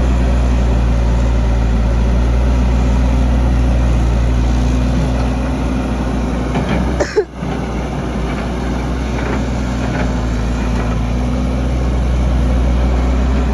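Heavy machine's engine running steadily at constant speed, with a brief sharp disturbance and dip about seven seconds in.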